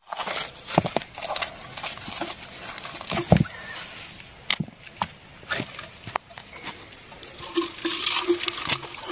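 Handling noise: scattered clicks, scrapes and plastic crinkles as a small freshwater crab is picked up off river gravel and a plastic soft-drink bottle is handled to put it in.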